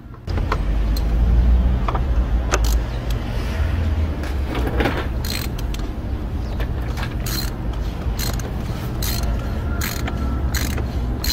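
Ratchet wrench with a 27 mm socket clicking in short runs as the oil filter housing cap of a Hyundai i40 diesel engine is loosened, over a steady low hum.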